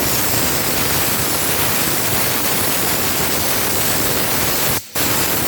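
Compressed-air spray gun hissing steadily as it sprays anti-rust underbody coating, cutting out briefly near the end and starting again.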